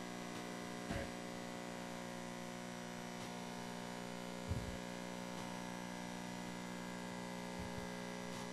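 Steady electrical hum on the microphone feed, made of many held tones, with faint soft knocks about one second and four and a half seconds in.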